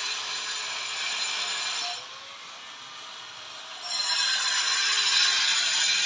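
A power tool running with a steady harsh noise. It eases off about two seconds in and comes back up just before four seconds.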